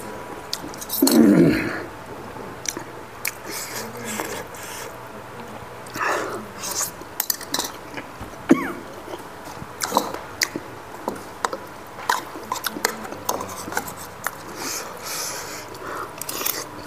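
Close-miked eating: chewing and lip smacks, with a spoon clicking against bowls. A loud throat-clearing sound about a second in.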